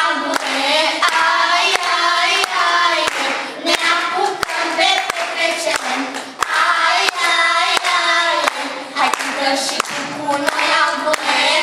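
A group of girls singing together, with steady hand claps keeping time about twice a second.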